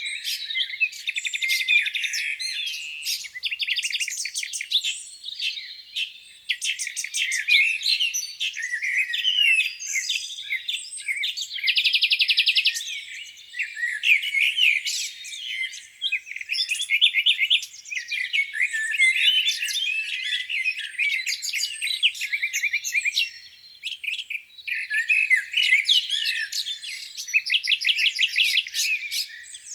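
Many songbirds singing at once, a dense chorus of overlapping chirps and rapid trills with hardly a pause.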